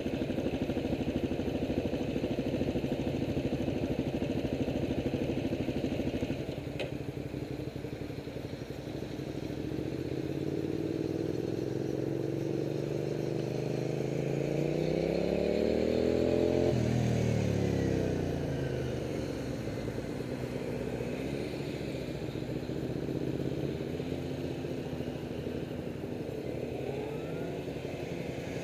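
Vehicle engine running steadily, then revving up, its pitch climbing for several seconds to a peak about two-thirds of the way through. The pitch then drops quickly and goes on rising and falling unevenly. A single sharp click comes about a quarter of the way in.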